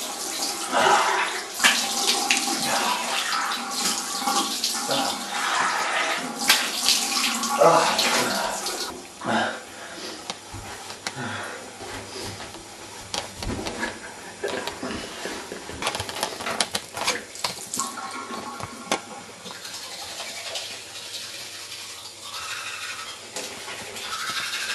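Water running from a tap into a bathroom sink, louder for about the first nine seconds and quieter after, with scattered small knocks and clicks.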